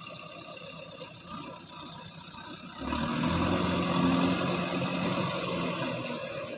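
JCB backhoe loader's diesel engine running, then revving up hard about three seconds in and holding high revs, as under load from the digging and lifting.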